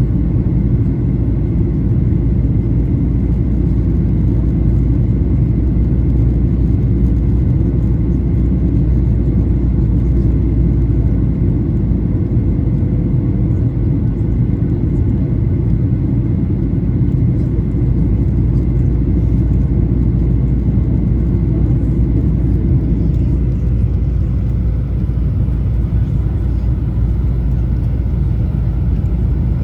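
Steady cabin rumble inside a Boeing 737-800 with CFM56-7B engines: engine and airflow noise heard from a window seat, with a faint steady whine over it.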